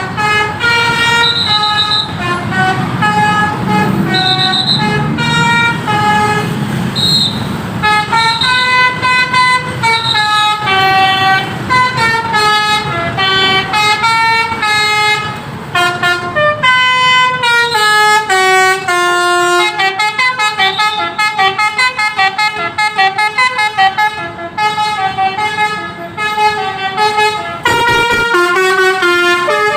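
Basuri V3 multi-tone 'telolet' bus horns playing a duet: a continuous, rapid melody of short pitched horn notes stepping up and down. A low rumble sits under the first several seconds.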